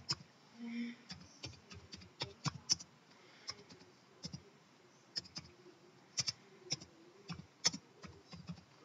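Computer keyboard being typed on, irregular single keystrokes at a slow hunt-and-peck pace as a short title is entered.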